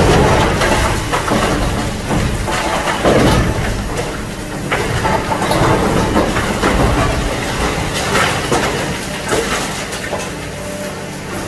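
Excavator-mounted hydraulic demolition crusher breaking reinforced concrete: irregular cracking and crunching of concrete and rebar over the steady running of the excavator's diesel engine.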